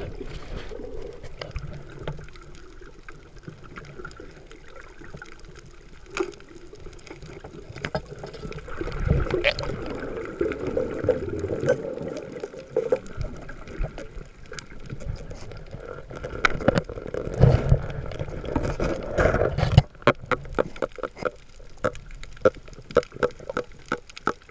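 Underwater sound picked up by a camera in its housing: a muffled wash of water and bubbling. Scattered clicks and knocks run through it and come thick and fast in the last few seconds.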